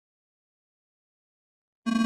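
Dead silence, then near the end a loud, steady, distorted musical tone with many overtones starts abruptly.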